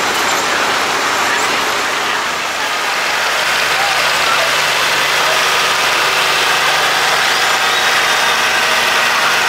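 Oliver 1555 tractor engine running steadily as the tractor drives past, its hum settling in from about three seconds in, over the chatter of onlookers.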